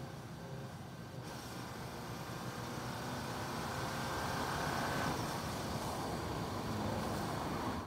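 Seat Leon ST estate car driving on an open road, its engine and tyre noise growing louder over the first few seconds as the car nears.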